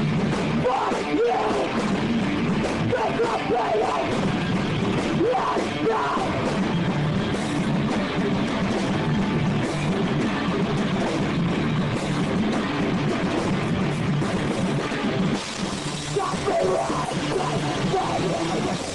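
Live rock band playing: electric guitar over a drum kit, with frequent drum and cymbal hits.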